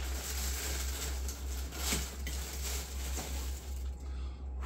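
Styrofoam packing being handled and pulled apart, rubbing and scraping with small knocks and one sharper knock about two seconds in, over a steady low hum.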